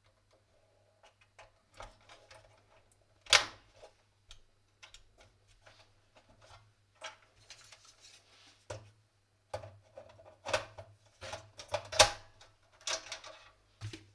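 Clicks, taps and light rattles of a Dell Optiplex 7090 SFF desktop's parts being handled while RAM is fitted, with two sharp clicks, one about three seconds in and one about twelve seconds in.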